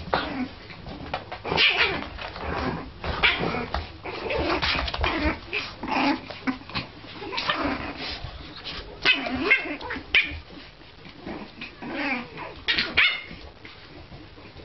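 Puppies yipping and barking in many short, irregular bursts.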